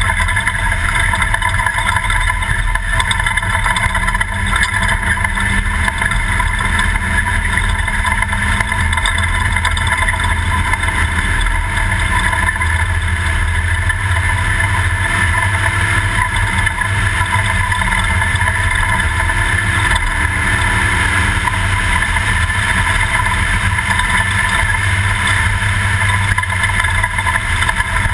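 Class 2000 Toyota off-road race truck running steadily at speed, a continuous engine drone with a strong low rumble underneath and no marked revving.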